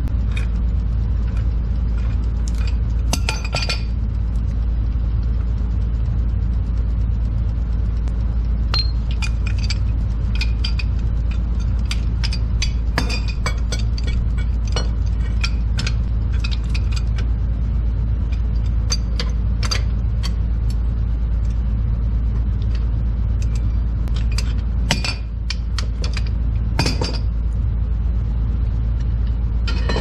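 Metal tools and gas pipe fittings clinking and tapping while a gas line is connected, in scattered sharp clicks with several busier clusters, over a steady low rumble.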